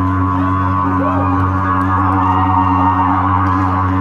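Live folk-band music built on a steady, deep droning note with a wavering, didgeridoo-like buzz, and a few gliding higher lines over it.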